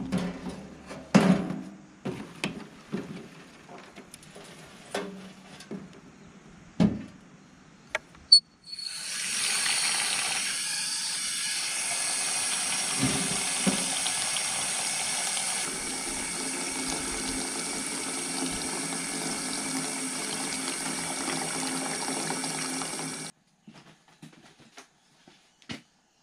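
Water from a garden hose pouring into a stainless steel basin of carrot greens: a steady splashing stream that starts about a third of the way in and stops abruptly near the end. Before it come a few scattered knocks and rustles.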